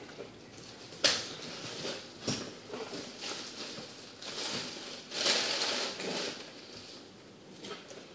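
Fillet knife cutting through a croaker on a plastic cutting board: irregular crunching and rasping strokes as the blade works through scales, skin and bone, the longest stroke a little past halfway. A sharp knock comes about a second in.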